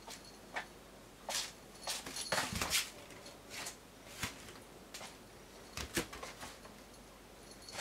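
A cat pawing and scrabbling at shoes on the floor as it hunts a cockroach: a string of quick, irregular scrapes, taps and rustles, busiest about two to three seconds in.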